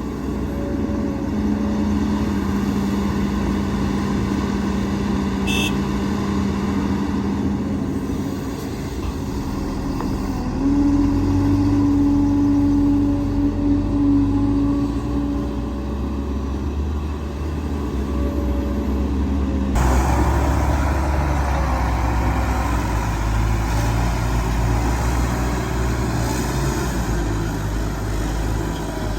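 Heavy diesel machinery running, excavator and dump-truck engines at work, getting louder with a higher engine note about ten seconds in. The sound changes abruptly about twenty seconds in.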